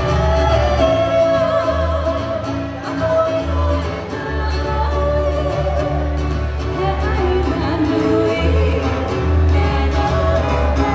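Live Hawaiian song: a singing voice with vibrato over strummed acoustic string instruments and a deep, moving bass line.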